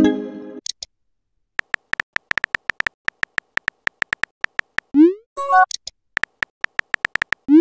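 Phone-keyboard tap clicks from a texting app as a message is typed, a steady run of short ticks, then a short rising swoosh about five seconds in as the message sends. A brief tone follows, then more key clicks and another rising swoosh near the end.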